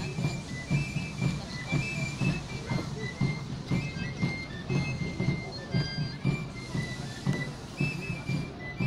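Folk music: a high, whistle-like pipe plays a melody of short notes over a steady drum beat.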